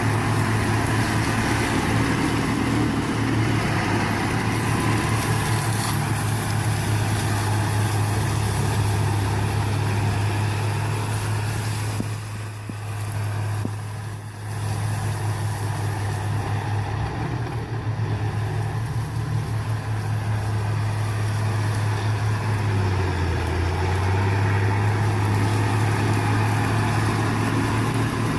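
Engine of a land-and-water clearing machine running steadily with a low hum. It dips briefly in level about halfway through, and its pitch drops for a moment a little later.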